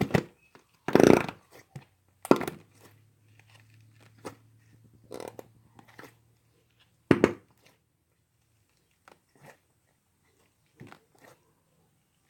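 Slime being squished and pulled by hand: a series of separate sticky, crackling squelches, loudest about a second in and again at about seven seconds.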